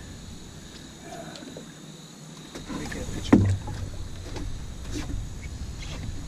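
Ambient sound aboard a small boat on a river: a low rumble with scattered light knocks and handling noises, one louder knock a little over three seconds in.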